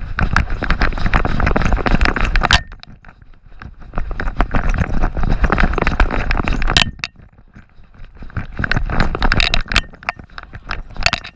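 Rapid rattling and jangling of a GoPro camera rig strapped to a running pug, jostled with each stride, in three loud bursts with short quieter pauses between.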